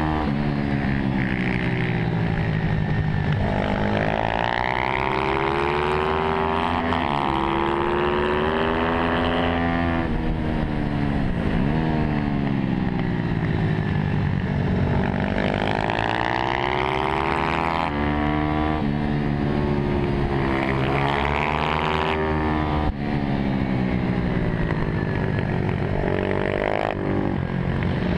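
Onboard sound of a small track motorcycle's engine at racing pace, its revs climbing and dropping again and again as it accelerates out of corners and shuts off into them, with wind rushing over the microphone.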